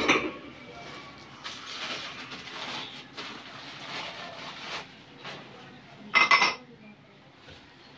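Newspaper wrapping rustling and crumpling as ceramic plates are unwrapped, with a sharp knock at the start. About six seconds in, a ceramic plate is set down on other plates with a loud, short clink.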